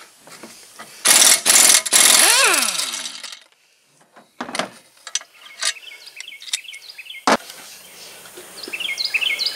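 Pneumatic wrench run in two loud bursts about a second in, loosening a bolt on the steering knuckle, then winding down with a falling whine. A few sharp metal knocks follow as the parts are handled, the loudest just after seven seconds, and a bird chirps near the end.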